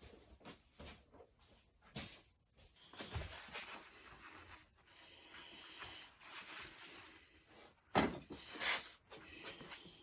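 Small clicks, knocks and rubbing from handling the metal parts of a partly disassembled air suspension compressor, with one louder knock about eight seconds in.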